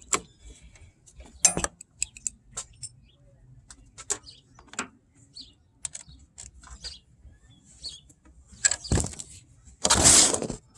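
Hand tools clinking and knocking against metal while an engine mount is worked on: scattered sharp clicks and taps, a dull thud about nine seconds in, and a louder harsh burst near the end.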